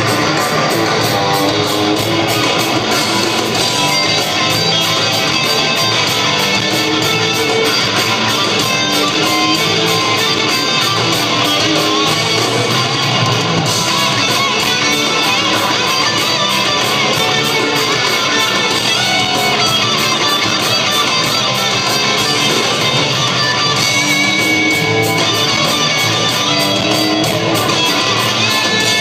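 Live rock band playing loud, with electric guitar to the fore, heard from among the crowd.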